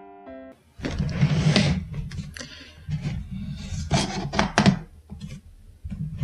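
A few piano notes end just after the start. Then come rustling and knocking as things are handled and moved about on a wooden desk, with several sharp knocks among the rustles.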